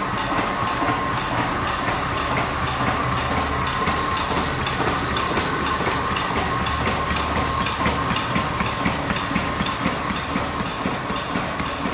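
ONDA UV flatbed label printing and die-cutting machine running: a steady, fast rhythmic mechanical clatter over a constant whine.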